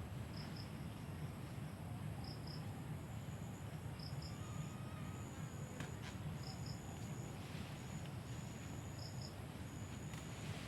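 Insects chirping: a short two-note chirp repeated every two seconds or so, with a higher buzzing trill that starts and stops, over a steady low rumble.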